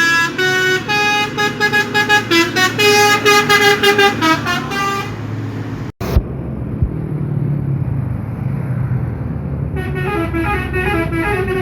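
Bus 'telolet' horn, a set of tuned horns playing a quick tune of stepping notes for about five seconds. Then a low vehicle engine rumble, and the horn tune starts again near the end.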